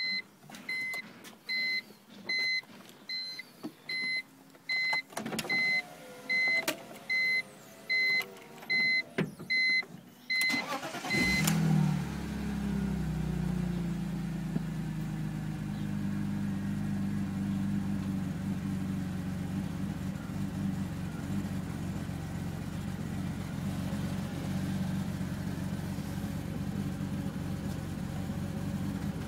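A dashboard warning chime beeps about every 0.8 s, with a few clicks, then stops as the 2002 BMW 330ci's 3.0-litre inline-six cranks and fires about eleven seconds in. The engine then settles into an uneven, wavering idle: a rough idle with misfires, which the owner suspects a failing fuel pump is causing.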